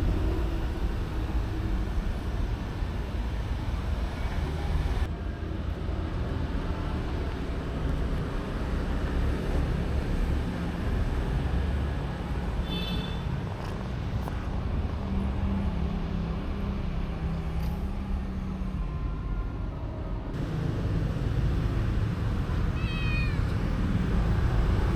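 Kitten meowing, two short high calls, one about halfway through and one near the end that falls in pitch, over a steady low rumble.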